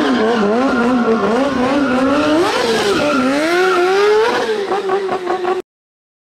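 Sport motorcycle engine revving hard, its pitch swinging rapidly up and down as the throttle is worked through a stunt manoeuvre. It cuts off suddenly near the end.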